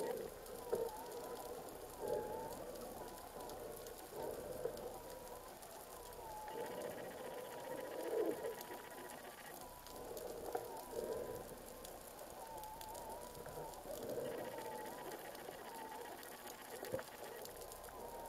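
Muffled underwater sound picked up by a camera in its housing: a faint wavering whine and irregular soft swells, with a few brief clicks.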